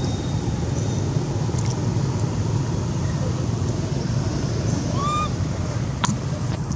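Steady low rumble of wind on the microphone, with one short high chirp about five seconds in.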